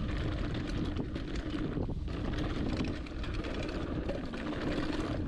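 Hardtail mountain bike descending a dirt trail: knobby tyres rolling over dirt and roots, with many small clicks and rattles from the bike and wind buffeting the camera microphone.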